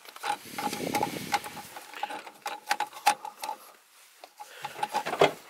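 Plastic gauge pod and an aftermarket gauge being handled in a car's dash: irregular small clicks and knocks, with a low rubbing, rustling noise in the first couple of seconds.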